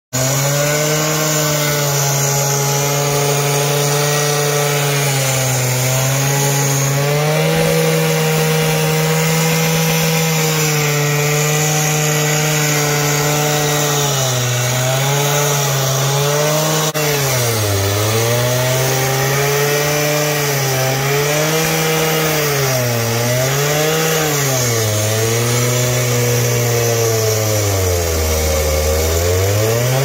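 Stihl gas cut-off saw on a walk-behind cart, its two-stroke engine running at high speed as the blade cuts asphalt. From about halfway through, the engine pitch dips again and again as the blade takes load, dropping lowest near the end before picking back up.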